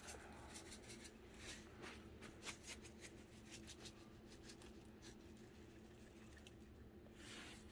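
Faint, irregular light ticks and patter of black pepper being sprinkled over a brisket in a foil pan.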